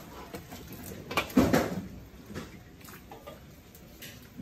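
A metal spatula scraping and knocking against a large steel wok as pork pieces are stirred, with a louder clank about a second and a half in.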